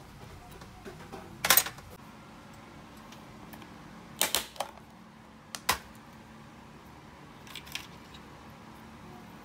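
A few sharp clicks and clatters of a clear plastic compartment box of small wire-brush bits being opened and handled in a stainless steel tray, in four short bursts with the first the loudest.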